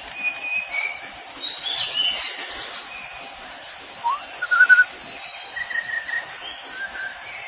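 White-rumped shama singing: a varied string of short clear whistled notes and slurred glides, the loudest phrase a little past the middle, over a steady high hiss.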